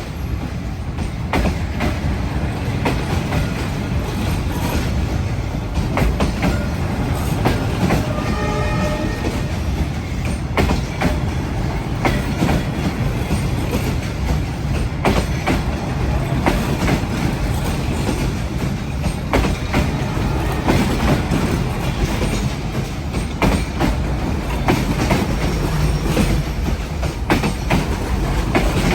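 Train running on the rails with a steady rumble and wheels clicking over the rail joints. About eight seconds in there is a brief pitched whine lasting over a second.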